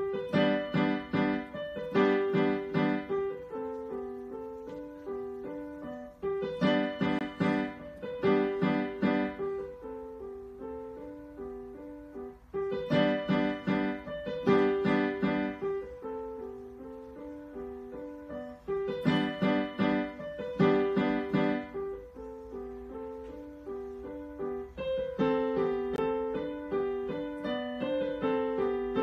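Digital piano playing a simple march: loud, accented chords in short groups that recur every few seconds, with softer melody notes between them, and a quieter passage near the end.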